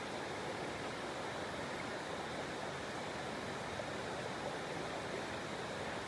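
Waterfall water rushing, a steady even hiss with no breaks.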